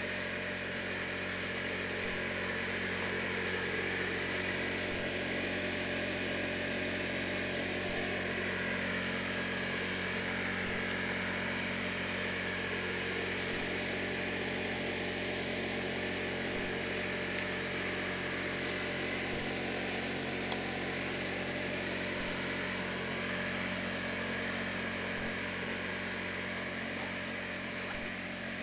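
A steady machine hum made of many layered tones, holding one pitch and level, with a few faint ticks.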